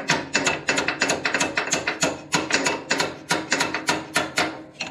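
Rapid series of light hammer taps, several a second, driving a tight steel pin home in a tractor's clutch linkage.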